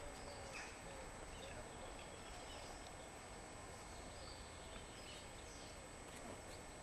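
Faint outdoor ambience with a few scattered high bird chirps over a steady low hiss.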